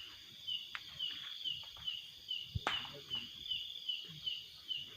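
Night insects chirping at a steady rhythm, about two short high chirps a second, like a cricket. Scattered faint rustles and clicks, with one sharp click and a low thump a little past halfway.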